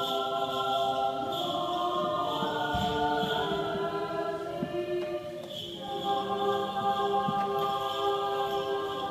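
Russian Orthodox church choir singing unaccompanied chant in long held chords, moving to a new chord about two and a half seconds in and again near six seconds after a brief dip.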